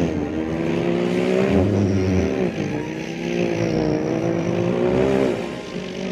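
A man imitating a car engine with his voice: a pitched, engine-like drone that wavers up and down in pitch like revving, breaking off briefly about two and a half seconds in and again about five seconds in.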